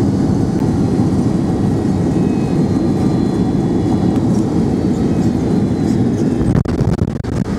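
Steady loud roar heard from inside the cabin of a Boeing 767-300 as it lands and rolls along the runway: jet engine and airflow noise, with a few sharp knocks and brief dips in level near the end.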